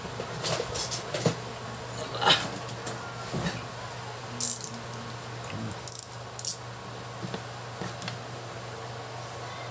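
Tools and an engine control unit being handled on a workbench: scattered clicks, taps and rattles, loudest a little over two seconds in, over a steady low hum.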